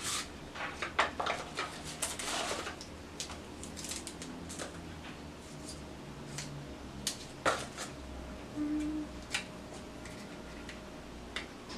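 Quiet handling of makeup: scattered light clicks and taps, with soft brushing rustles in the first couple of seconds, as a fan brush is worked into a powder highlighter and applied.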